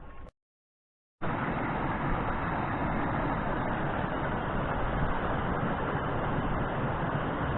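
A second of dead silence at a cut, then steady road and engine noise inside a moving vehicle.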